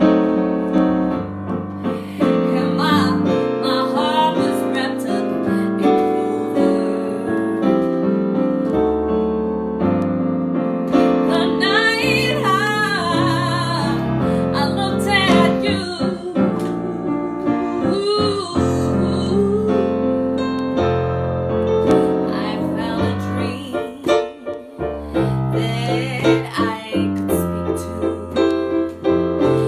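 A woman singing a song, accompanied by piano chords played on an electronic keyboard.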